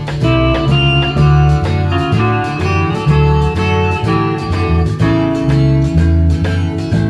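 Instrumental break of a Cajun country song: a guitar lead over a bass line that alternates between two low notes, with no singing.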